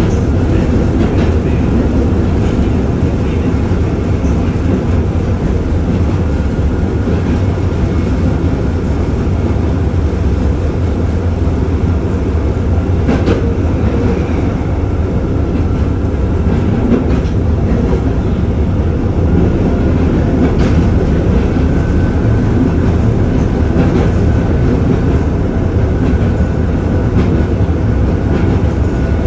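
LM-99AVN tram heard from inside the passenger cabin while running along the track: a steady low rumble of wheels on rails, with a few sharp clicks scattered through.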